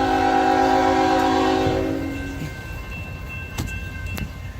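Union Pacific freight locomotive's multi-chime air horn sounding a loud held chord that cuts off about two seconds in, followed by the steady rumble of the passing train.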